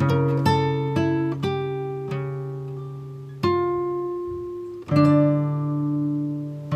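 Gentle background music: slowly plucked acoustic guitar notes, each ringing out and fading before the next.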